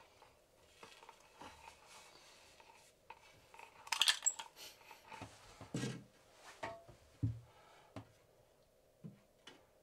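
Light taps, clinks and knocks of hard objects being handled, with a sharper metallic-sounding clatter about four seconds in and a couple of dull thumps a little later.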